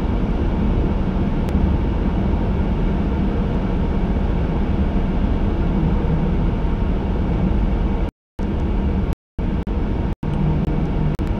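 Steady road and engine noise inside a moving car's cabin, a low rumble. From about eight seconds in, the sound cuts out abruptly to silence several times.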